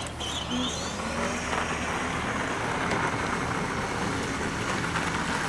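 Road traffic: a vehicle's steady hiss that builds up about a second in and holds.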